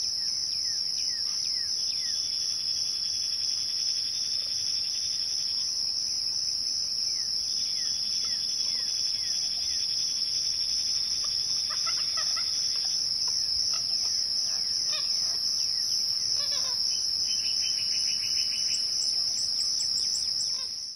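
A steady, high-pitched chorus of insects with songbirds calling over it: several trills of a few seconds each and scattered quick falling whistles. It fades out at the very end.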